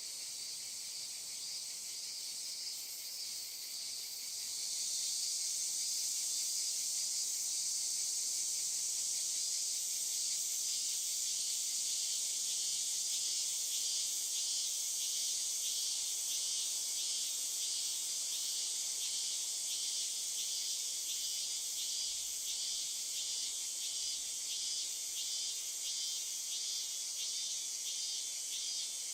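Steady, high-pitched chorus of insects, a dense rapid chirring that swells louder about four seconds in and then holds.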